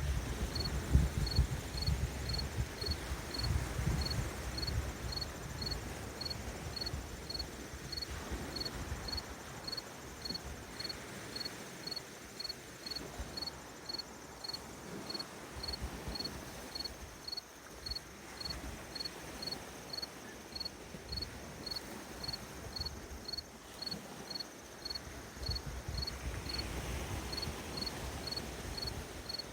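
A cricket chirping steadily, short high chirps repeating evenly at a little under two a second, over a low rumble that swells near the start and again near the end.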